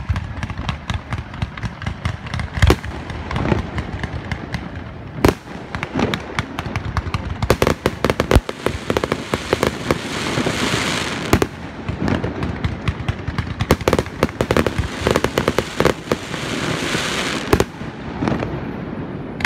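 Fireworks display: a fast run of sharp bangs from launches and bursts, with dense stretches of rapid crackling about halfway through and again near the end.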